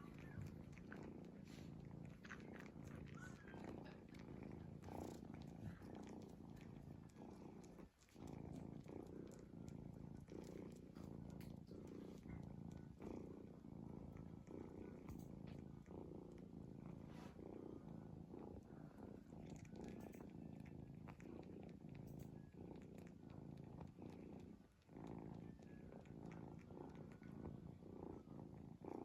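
A cat snoring as a low, continuous rumble that breaks off briefly twice.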